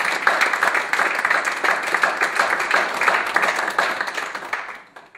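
Congregation applauding: many hands clapping at once, dying away near the end.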